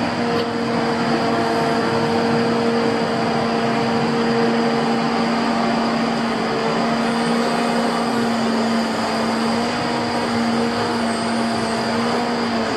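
Truck-mounted hydraulic timber crane on a Volvo FH16 log truck working, its hydraulics driven by the running truck engine, giving a steady mechanical whine over the engine noise.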